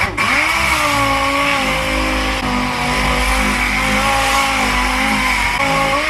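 A motor-driven workshop tool or machine starting up, running at steady speed for about six seconds, then winding down with a falling pitch.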